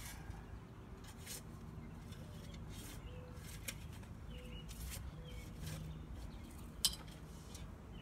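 Digging tool striking soil and roots: a string of separate sharp knocks and clicks, the loudest about seven seconds in.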